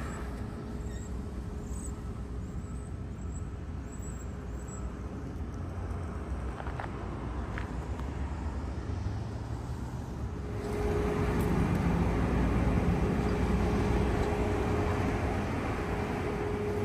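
Steady hum and low rumble at an EV fast-charging station, growing louder about ten seconds in, with a couple of faint clicks.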